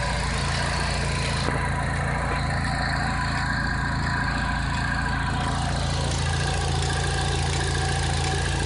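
Chevrolet Cobalt SS engine idling steadily, with the rough idle that comes when the oil cap is taken off.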